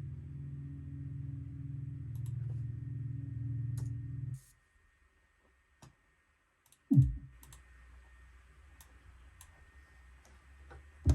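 A low, steady synthesizer drone cuts off about four seconds in, with light clicks scattered throughout. About seven seconds in there is a sudden loud pop falling in pitch, then a faint hum.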